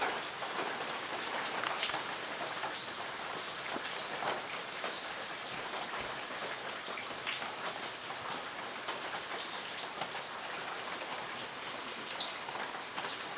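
Steady rain falling: an even hiss with many scattered drop ticks.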